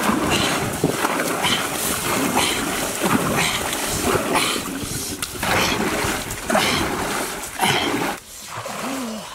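A wooden paddle driving a dugout canoe, splashing through the water in steady strokes about once a second.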